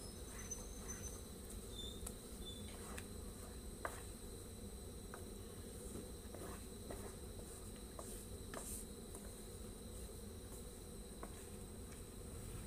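A wooden spatula stirring thick, simmering sago pearls in a pan, with scattered light clicks and knocks of the spatula against the pan. A steady high-pitched whine and a low rumble run beneath it.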